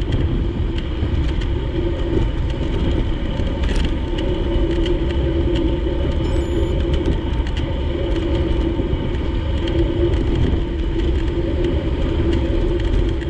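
Steady road noise from a moving bicycle ride: wind rumble on the microphone over a constant low hum, with scattered light clicks and rattles.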